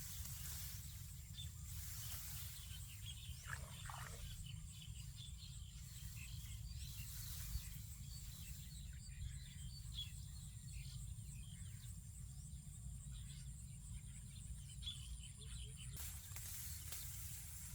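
Faint outdoor field ambience: many small scattered chirps from small animals over a low steady rumble, with a thin steady high-pitched tone throughout and a short pitched call about four seconds in.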